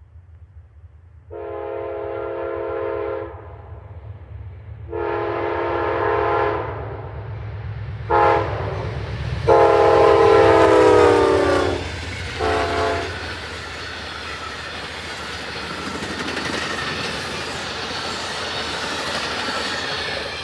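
Amtrak P42DC diesel locomotive's multi-chime horn sounding long, long, short, long, the standard grade-crossing signal, then one more short toot. The pitch sags slightly during the fourth blast. The train's cars then rumble and clatter past on the rails, growing louder.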